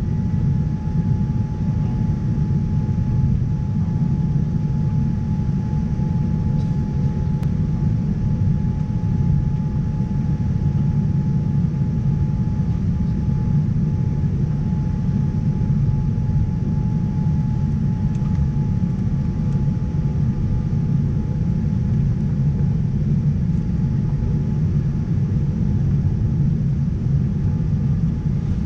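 Steady low rumble of airflow and engines inside a Boeing 787-9 airliner's cabin in flight, with a thin steady whine held over it.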